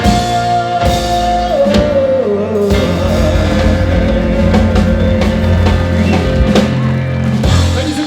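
Live band playing the closing bars of a song, with drum kit and guitar. A held high note slides down about a second and a half in, drum and cymbal hits follow, and the band ends on a long sustained chord that stops near the end.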